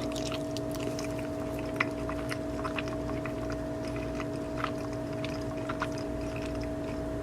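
Close-up chewing of a bite of a Jamaican-style chicken patty, its crisp pastry crust crackling in scattered small crunches, over a steady electrical hum.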